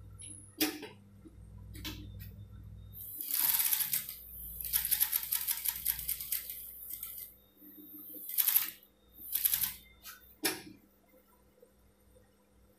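Typical industrial straight-stitch sewing machine stitching through fabric in short runs, a rapid clatter of needle strokes: two longer runs in the first half, then two brief ones. A low hum and a few single clicks fall between the runs.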